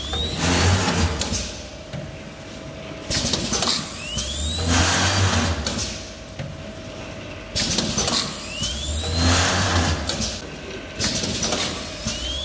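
Kalvac DCF100A linear cup filling and sealing machine running through its cycle, repeating about every four and a half seconds: a motor hum with a short rising whine as the cup conveyor indexes forward, then bursts of air hiss from the pneumatic filling and sealing heads.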